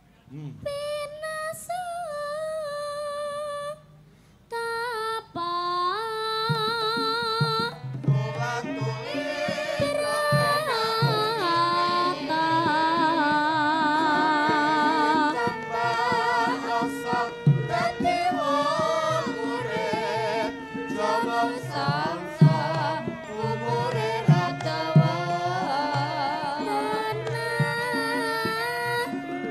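A young girl singing a Javanese song in sinden style into a microphone, with a high, wavering, ornamented melody. A drum and gamelan accompany her, and the music grows fuller from about eight seconds in.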